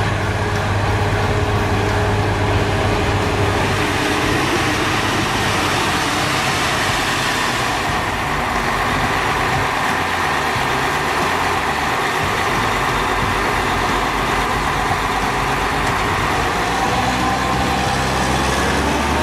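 Engine of a large machine running steadily under load, its pitch shifting a little over time.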